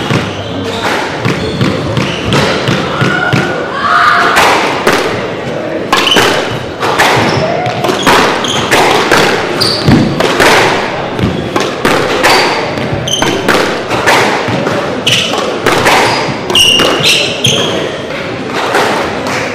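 Squash rally: the ball struck by rackets and hitting the court walls in an irregular run of sharp knocks and thuds, ringing in the hall.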